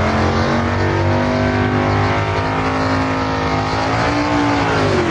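Radio-drama sound effect of a motor engine running steadily, its pitch creeping up and then dropping away near the end, standing in for Santa shooting up the chimney.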